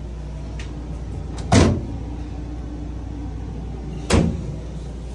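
Two sharp knocks about two and a half seconds apart, from a door being shut, over a steady low hum.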